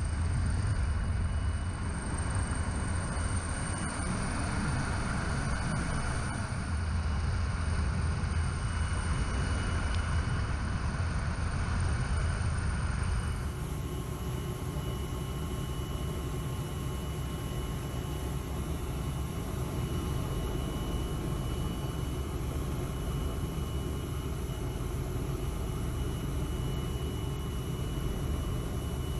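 Helicopter engine and rotor noise: a steady rumble. It changes abruptly about 13 seconds in.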